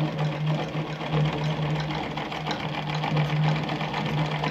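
Singer 319K sewing machine running steadily, sewing a straight stitch through fabric: a steady motor hum under a rapid ticking of the needle and feed mechanism.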